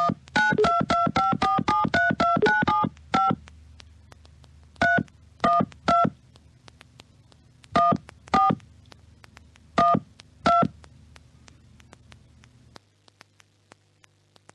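Touch-tone telephone keypad being dialed: a fast run of about a dozen short DTMF beeps over the first three seconds, then seven more single beeps spaced half a second to two seconds apart, ending about eleven seconds in.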